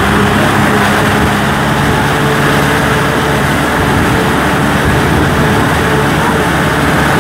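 Kubota M6040 SU tractor's four-cylinder diesel engine running steadily, heard close up from on the tractor as it drives through a flooded rice paddy.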